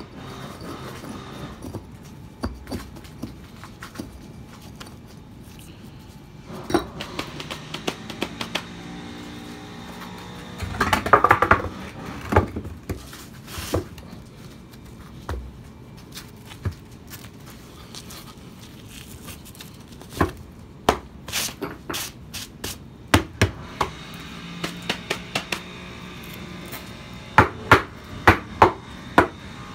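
Hammer knocking on concrete paving stones: scattered sharp knocks, a dense clatter about eleven seconds in, and a quick run of about two knocks a second near the end.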